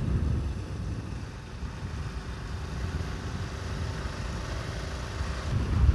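Honda Grand Astrea motorcycle's small four-stroke single-cylinder engine running steadily as the bike cruises along, a low rumble with road and air noise.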